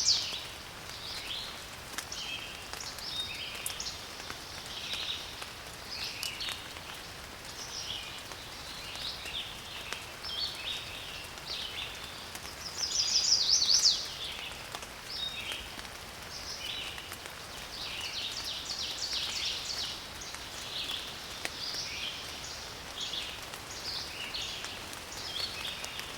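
Birds singing and chirping over light rain, with occasional sharp drip ticks. The loudest moments are two fast, buzzy trills, one at the start and one about 14 seconds later.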